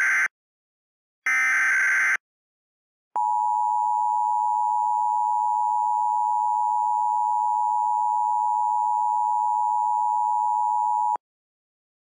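Emergency Alert System SAME header: the tail of one short buzzy digital data burst, then a full one about a second in. About three seconds in, the EAS two-tone attention signal (853 and 960 Hz together) starts and holds steady for about eight seconds before cutting off abruptly.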